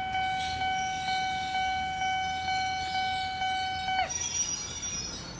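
Japanese railway level-crossing warning bell at an Eizan Electric Railway crossing, ringing its repeated clanging tone about twice a second, then stopping about four seconds in. A faint hiss of train noise runs under it and carries on after the bell stops.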